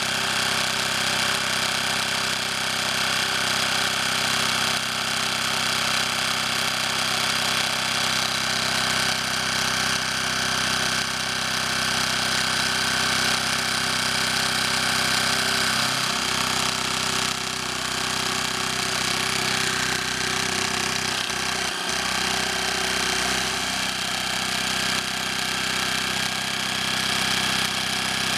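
Dremel scroll saw running steadily, its blade going up and down as it cuts a small wooden lure blank.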